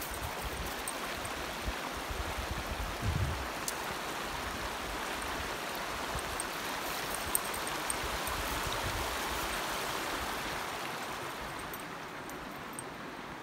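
Mountain river flowing: a steady rushing of water that swells a little midway and eases near the end, with a brief low rumble about three seconds in.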